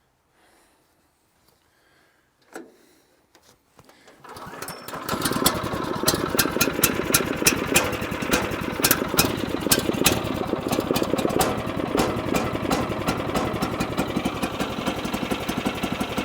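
Woodland Mills sawmill's small gasoline engine cold-starting with the choke on, catching about four seconds in, then running steadily. It is the first start since it was last used in freezing weather.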